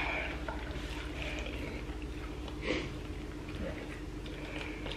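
A steady low room hum with several short, soft hissing breaths drawn through the mouth, about one every second and a half, from someone whose lips are burning from an extremely hot chip.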